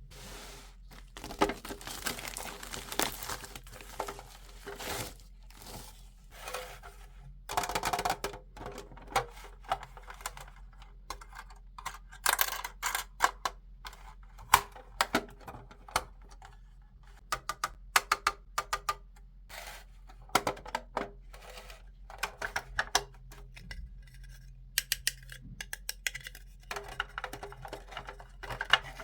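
Toy unboxing handling sounds: plastic packaging crinkling and tearing, with many sharp clicks and taps of small plastic doll pieces and accessories being handled.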